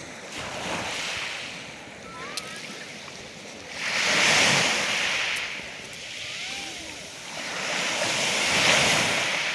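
Sea waves washing onto the shore, with two larger surges about four seconds apart. Faint short calls, such as distant birds, sound now and then.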